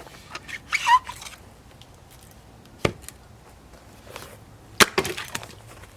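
Heavy blows splitting firewood: two sharp strikes about two seconds apart, the second followed by wood cracking apart.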